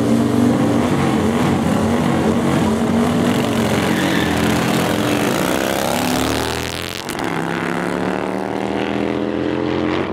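Motorcycle engines revving at the start line and pulling away, the engine note climbing in pitch. About seven seconds in the sound changes abruptly to a steadier engine note.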